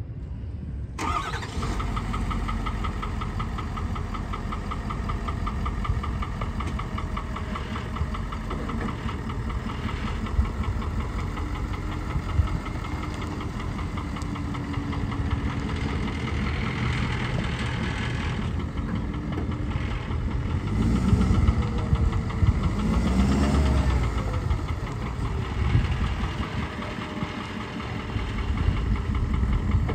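2016 Ford F550 dump truck's engine starting about a second in, then idling steadily. The revs rise and fall a few times about two-thirds of the way through.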